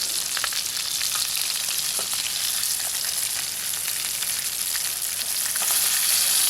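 Chicken tenders frying in hot oil in a small mess-kit pan: a steady sizzle with scattered small pops and crackles, growing louder near the end.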